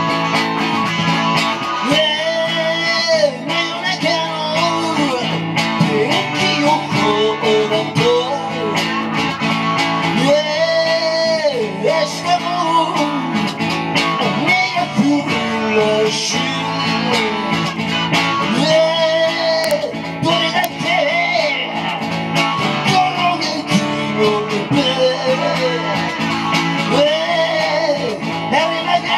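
Live band music led by guitars, with a lead melody line that bends up and down in pitch.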